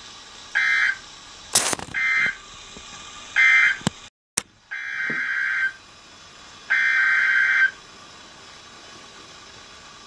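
Weather-radio alert data bursts: buzzy digital screeches in a narrow band, three short ones and then two longer ones of about a second each, over a steady hiss. They mark the end of one warning message and the start of the next. A sharp click comes early on, and the signal drops out briefly near the middle.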